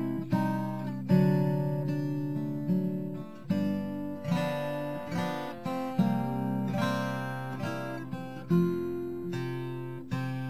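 Acoustic guitar music: chords strummed one after another, each ringing out and fading before the next.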